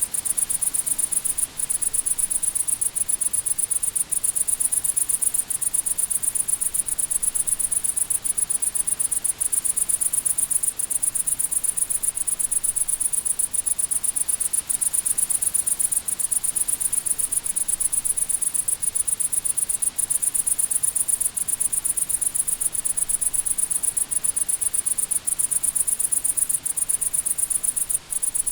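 Crickets chirping in a steady, fast, high-pitched pulsing chorus.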